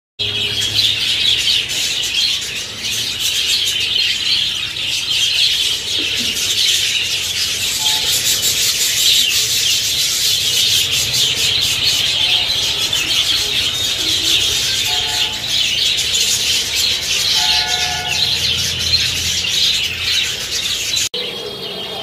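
A large flock of budgerigars chattering and chirping continuously in a dense, overlapping warble. The sound drops out abruptly for a moment near the end.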